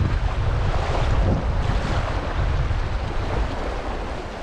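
Wind buffeting the microphone in gusts over the steady rush of the river. The gusts are strongest in the first second or two and ease toward the end.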